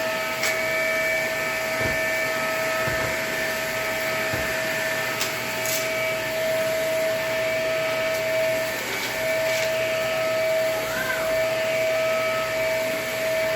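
Vacuum cleaner running steadily, a constant hum with a steady whine, with a few faint clicks.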